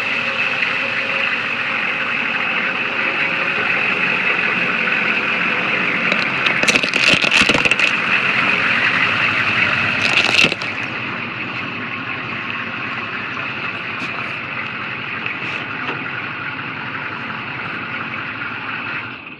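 Toy Hummer ride-on car running with a steady motor drone and high whine, louder for the first ten seconds and quieter after. Cracking crunches come around seven seconds in and again near ten seconds as it runs over small die-cast toy cars.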